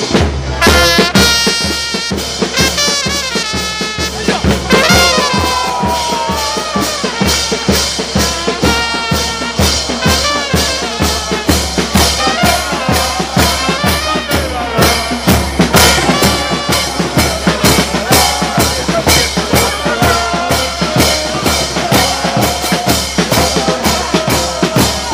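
Supporters' band of bass drum and crash cymbals beating a fast, steady rhythm, with fans cheering and chanting over it in celebration of a goal.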